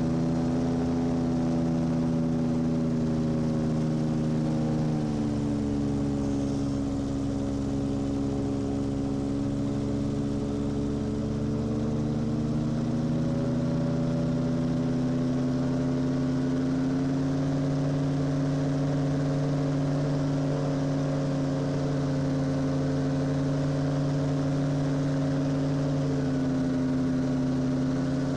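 Gyrocopter's engine and pusher propeller heard from the cockpit, a steady drone. It drops in pitch about five seconds in as power comes back on the landing approach, rises a little around thirteen seconds in, then holds steady as the aircraft rolls along the runway.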